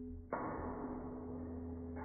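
Slowed-down, deep-pitched sound of a BMX starting gate's start sequence: a low held tone that cuts off about a third of a second in, followed by a steady rushing noise.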